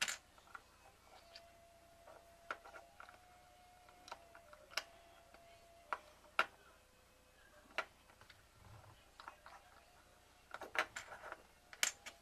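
Scattered light clicks and taps from a small model boat being handled, its parts moved by hand, with a loud click right at the start and a quick run of clicks near the end.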